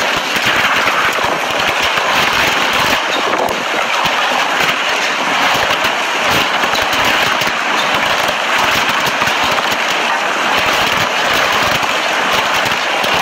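Heavy rain and wind from a severe thunderstorm: a steady, loud rushing hiss with fine crackling all through.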